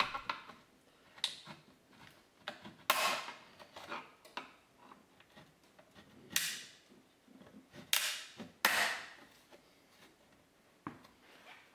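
Plastic retaining tabs of a 2006 Ford Explorer's side-mirror cap snapping loose as a flat-blade screwdriver pries the cap off the mirror housing. Several sharp snaps come a few seconds apart, the loudest two close together about eight and nine seconds in, with small clicks and scrapes of the screwdriver on the plastic between them.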